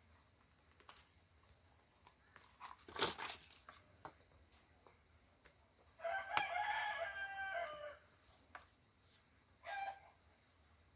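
A rooster crows once in the background: one call of about two seconds, a little past the middle, dropping slightly in pitch at its end. A sharp knock comes a few seconds before it, and a brief shorter call near the end.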